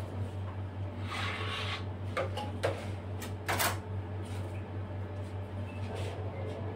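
Scattered clicks and a short scrape of cake-decorating tools being handled, the loudest click about halfway through, over a steady low hum.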